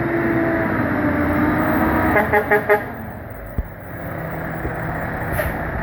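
Truck passing on the road with a quick run of four short horn toots about two seconds in, over steady traffic noise.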